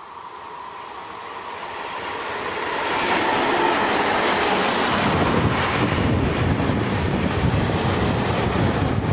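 Freight train hauled by a diesel locomotive approaching and passing close by, growing louder over the first three seconds. Then a steady, heavy rumble and wheel clatter as the freight wagons roll past.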